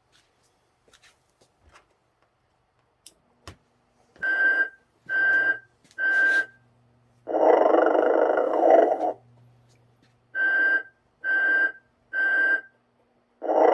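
1995 Telco Mrs. Santa Claus Snoring Motionette playing its snoring cycle: three short whistling tones, then one long noisy snore, repeating. A couple of sharp clicks come first, and a faint low hum runs underneath once the snoring begins.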